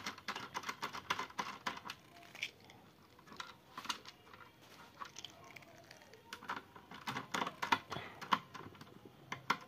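Screwdriver undoing motherboard screws: irregular runs of small sharp clicks, busiest in the first couple of seconds and again near the end.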